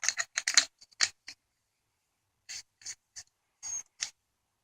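Aluminium flashlight being shaken, its batteries giving a little rattle inside the body: a quick flurry of short clicks, then a few separate knocks.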